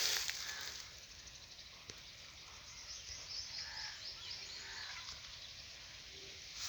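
Faint outdoor ambience with birds chirping and calling in short, repeated notes.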